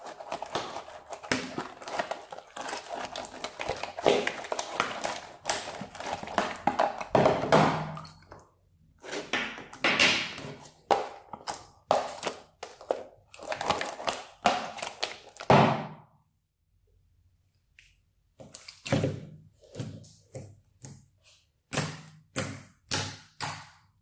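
Green white-glue slime being stirred and kneaded in a plastic tub, giving a dense run of wet squelches and clicks. After a short pause, a string of separate squishy pops about two a second near the end, as the slime is poked.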